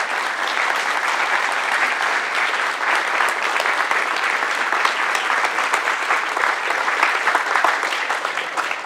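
Audience applauding: many people clapping steadily, fading out just at the end.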